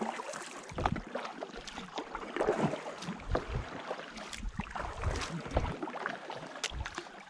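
Kayak paddle strokes: the double-bladed paddle dipping and splashing in the water, one stroke after another, with dull low thumps in between.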